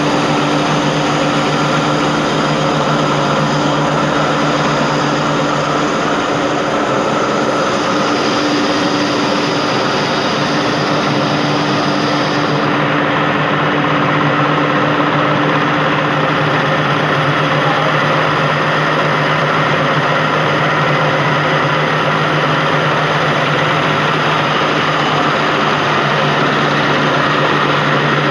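Automatic flour-mill (atta plant) machinery running: a loud, steady mechanical drone with a constant hum from the plant's motors and grain-handling equipment. A high hiss in the sound thins out about halfway through.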